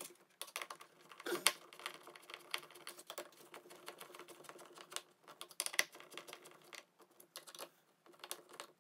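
Hand screwdriver turning screws into a metal cabinet-door hinge: a run of irregular small clicks and scrapes of metal on metal.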